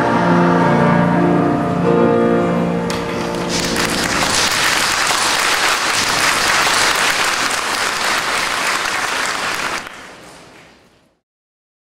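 A children's choir holds the last notes of the song, then an audience applauds for several seconds; the applause fades out near the end.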